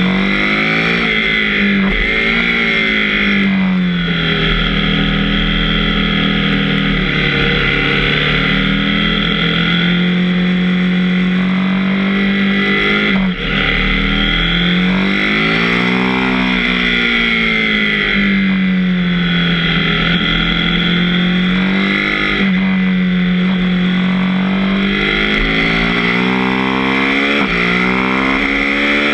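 KTM 790 Duke's parallel-twin engine under way, its pitch rising and falling over and over as the throttle is opened and closed, with one brief dip in level about 13 seconds in.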